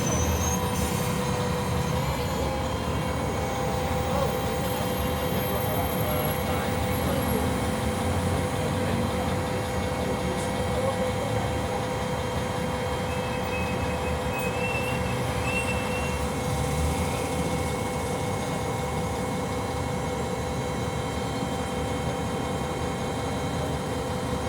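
Mercedes-Benz O-500 MA articulated bus with its OM-457 LA six-cylinder diesel running steadily under way. There is a low rumble and a steady whine that holds its pitch throughout.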